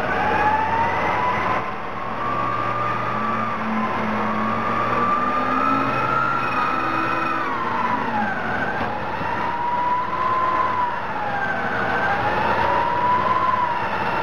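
Caterpillar 651B scraper's diesel engine running under load as the scraper drives off the dolly, with a whine that rises and falls in pitch several times.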